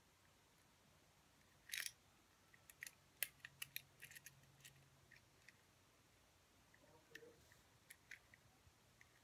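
Plastic Rubik's cube being turned by hand: sharp clicks and clacks as the layers snap round. There is a quick rattle about two seconds in, a run of clicks over the next few seconds, then scattered single clicks.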